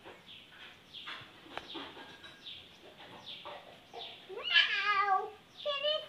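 Birds chirping with many short, quick falling notes. About four and a half seconds in comes a much louder drawn-out wavering call, rising and then wobbling in pitch, and a second one starts near the end.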